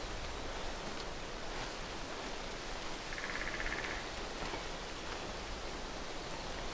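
Steady hiss of outdoor forest ambience, with a brief high trill about three seconds in.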